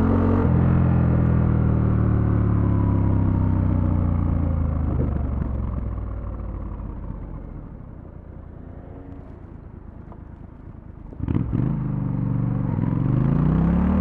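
Triumph Scrambler 1200 X's parallel-twin engine slowing down, its pitch falling over several seconds, then running quietly at low revs. A sudden sharp crack comes about eleven seconds in, and the engine then picks up again, its pitch rising as the bike accelerates.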